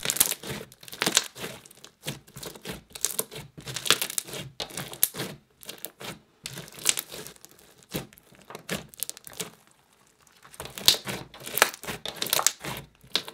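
Cloudy slime full of fishbowl beads squeezed, poked and pressed by hand, giving irregular clusters of crackling bubble pops, with a brief lull near the end.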